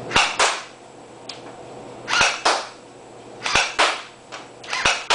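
TSD M93R battery-powered airsoft pistol firing four single shots about a second and a half apart, each a sharp snap followed a quarter second later by a second snap.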